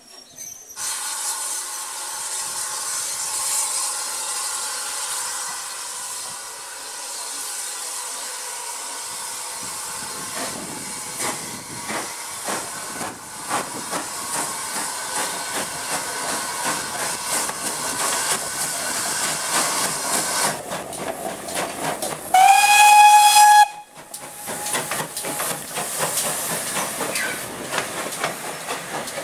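GWR 6400-class pannier tank engine hissing steam, then its exhaust beats and wheel clanks as the train passes close. About two-thirds of the way through, the engine gives one short blast on its whistle, the loudest sound.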